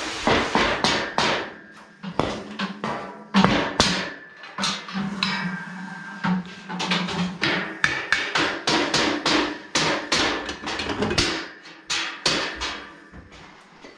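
Hammer blows on steel boltless shelving, knocking the beams loose from the slotted uprights to take the rack apart: a long, irregular run of sharp metal knocks and clangs.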